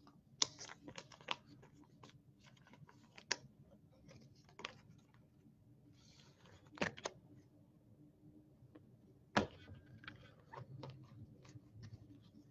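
Baseball trading cards handled by hand: faint, irregular clicks and taps with light rustling as the cards are flipped and slid past one another, a few sharper snaps standing out.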